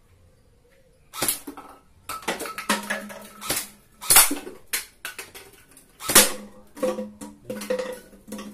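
LDT HK416D electric gel blaster firing gel balls repeatedly, starting about a second in: single cracks and short rapid bursts, with a steady low hum under the longer bursts.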